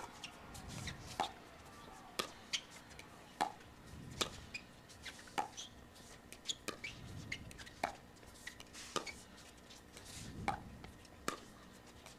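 Pickleball dink rally: paddles striking a hollow plastic pickleball in a long exchange of soft shots, a sharp pock roughly once a second.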